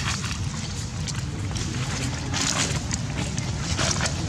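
Steady wind rumble on the microphone, with short bursts of dry-leaf rustling about two seconds in and again near the end.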